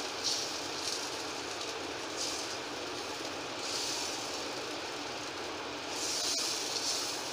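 Moong dal batter sizzling on a hot, oiled tawa while a steel ladle spreads it in circles, its scraping swishes coming and going every second or two.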